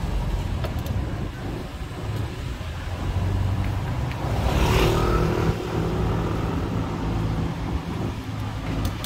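Street traffic: vehicle engines running steadily, with a louder rush of noise about halfway through as a vehicle passes close.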